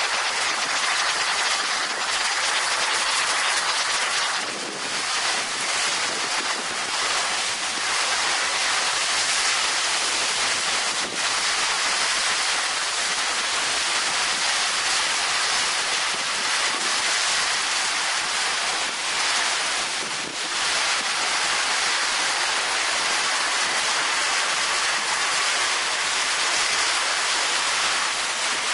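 Torrential wind-driven rain in a severe storm: a loud, steady rushing of rain and strong wind, easing only slightly for a moment twice.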